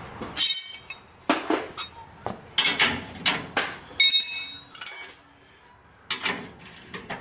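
Metal wrench sockets clinking and tapping: about half a dozen sharp metallic clinks, some ringing briefly, as sockets are picked out and tried on the bumper bracket bolts to find their size.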